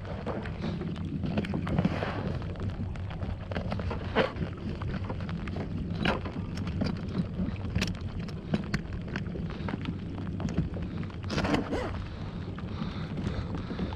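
Steady low wind rumble on the microphone, broken by scattered sharp clicks and knocks, the clearest about four, six, eight and eleven and a half seconds in.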